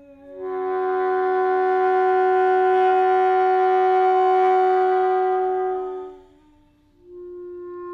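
Alto saxophone and clarinet duo: the saxophone holds one long note that swells and then fades away about six seconds in, over a softer, lower held note. About a second later the clarinet takes up a new held note.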